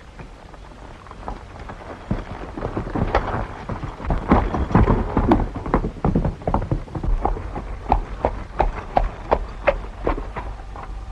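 Horses galloping, a rapid clatter of hoofbeats over a low rumble. It builds about two seconds in and is loudest around the middle, then thins to separate hoof strikes near the end.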